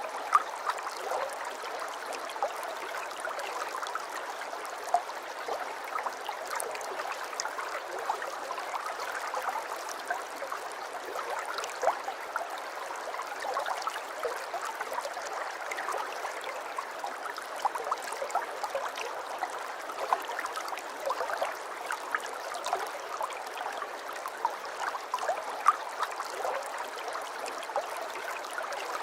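Aquarium water trickling and bubbling steadily, with a constant stream of small pops and gurgles.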